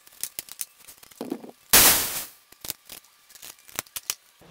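Clicks and knocks of hands handling a metal paint pressure pot, with one loud, sharp burst of noise a little under two seconds in that dies away over about half a second.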